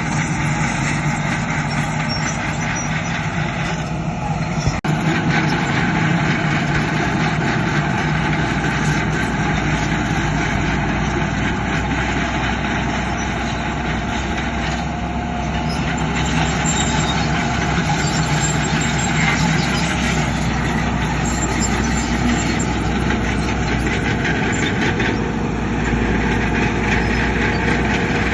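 Heavy diesel earthmoving machinery running steadily, a continuous dense engine noise that rises a little in loudness a couple of times.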